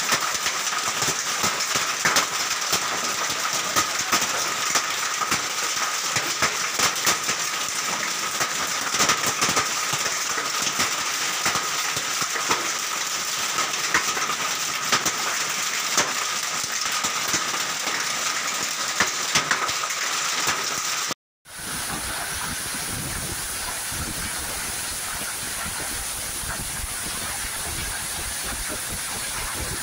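Heavy rain and hail pelting down, a steady rush broken by frequent sharp taps of hailstones striking. After a short break in the sound about two-thirds of the way through, a steadier rush of rain with a low rumble of wind on the microphone.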